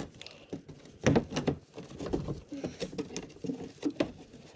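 Plastic underbody shield being pried and worked loose by hand: irregular clicks, scrapes and knocks of plastic, with sharper knocks about a second in and again near the end.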